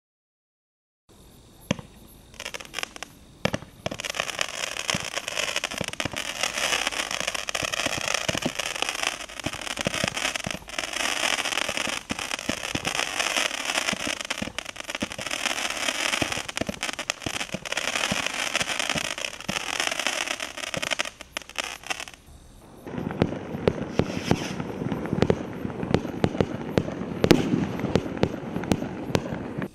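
Consumer fireworks going off, heard from about 25 metres. For some twenty seconds there is dense crackling with many sharp pops as shots fire. A little over twenty seconds in it changes to a deeper, heavier run of bangs and crackles.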